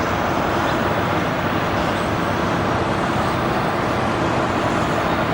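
Four jet engines of a Boeing 747 freighter on its landing pass: a loud, steady rush of jet noise with a faint high whine.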